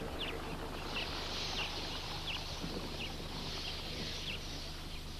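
A bird calling with short falling chirps, about one every three-quarters of a second, over steady hiss and a low hum.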